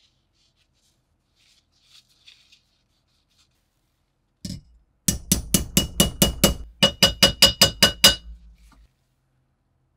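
Metal hammer tapping a thin, rusty lock plate laid on a steel block: one knock, then two quick runs of about eight strikes each, some six a second. Each strike has a short metallic ring.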